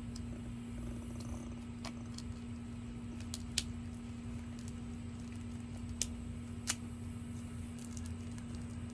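A handful of sharp, scattered clicks from plastic plant packaging being handled and cut with a knife, over a steady low hum.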